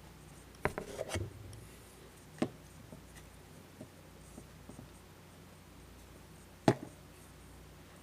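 Hands working on axle parts: a handful of sharp knocks and light clicks from the parts and tools being handled. The loudest, single sharp knock comes near the end.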